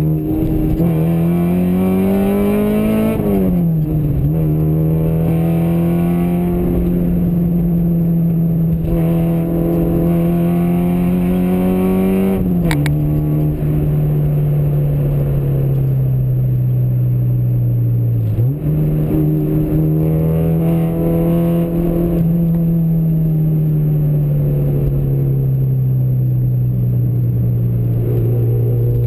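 Engine of the vehicle carrying the camera, pulling in gear as it drives. Its note climbs with speed and drops sharply three times at gear changes, then eases down and holds steady. A single sharp click sounds at about the middle gear change.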